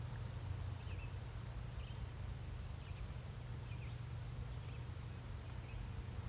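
A bird chirping faintly, short calls about once a second, over a steady low rumble.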